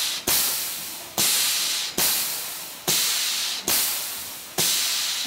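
Compressed air hissing out in regular bursts a little under one a second, each starting with a sharp click and fading away. The hiss is typical of a pneumatic cylinder's valve venting on every stroke.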